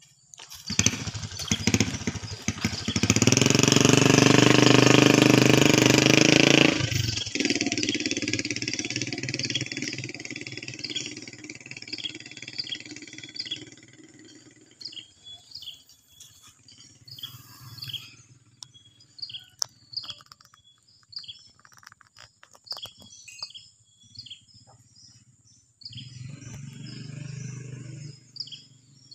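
An engine running loud for the first seven seconds, stopping sharply, then fading out over several seconds. Afterwards birds chirp in short repeated notes, and a low engine hum comes back near the end.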